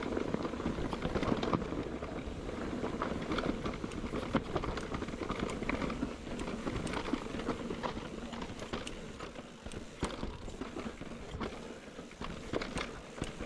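Mountain bike rolling over a rough trail: a steady rumble of tyres on dirt and stone, with frequent quick rattles and knocks from the bike.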